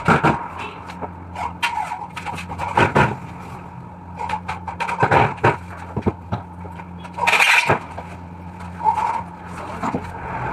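Irregular knocks and scrapes over a steady low hum, with one longer, louder scraping rush about seven seconds in.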